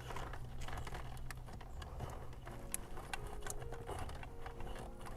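Faint scattered clicks and light rustling of hands handling wires and plastic connectors of a car's wiring harness, over a steady low hum.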